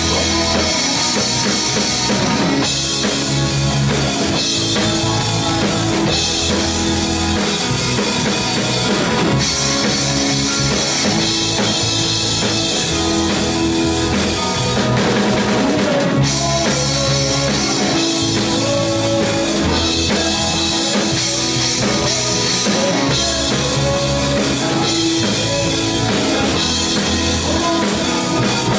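Live worship band playing a song: drum kit, bass guitar, keyboard and guitar together at a steady, even loudness.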